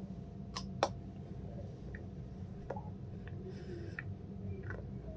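Someone chewing a bite of a peanut chocolate bar: a few soft, scattered clicks and mouth sounds over a steady low hum.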